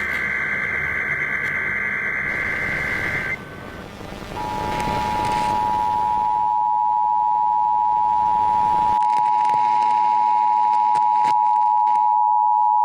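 Emergency Alert System test over FM radio. The last SAME header data burst, a two-pitch digital warble, ends about three seconds in. After about a second's gap, the steady two-tone EAS attention signal (853 and 960 Hz sounding together) starts and holds.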